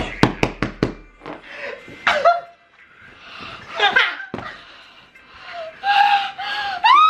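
A small group laughing and shrieking with excitement, with high-pitched squeals. There is a quick run of about five sharp smacks in the first second, and a long squeal near the end.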